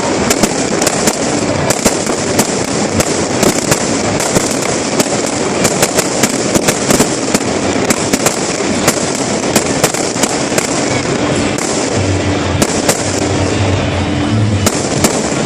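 A fireworks display crackling continuously, with rapid sharp pops several times a second. Steady low music tones come in underneath near the end.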